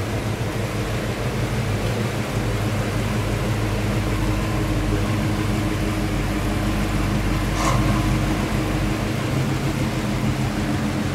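Low steady engine rumble from a lifted early-1970s Chevrolet crew-cab pickup and then an Oldsmobile Cutlass cruising slowly past at low speed, over a light steady hiss. A brief sharp sound about three-quarters of the way through.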